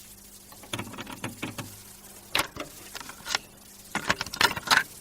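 A series of irregular sharp clicks and knocks over a faint steady low hum, the loudest clustered near the end.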